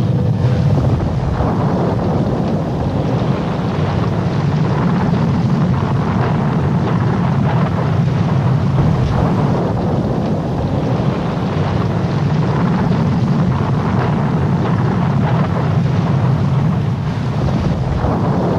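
Steady, loud rushing noise of strong wind buffeting the microphone over rough sea.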